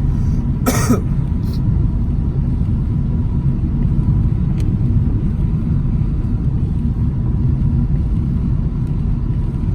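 Steady low rumble of road and engine noise inside a moving car's cabin, driving on a rain-wet road. A short hissing burst comes about a second in.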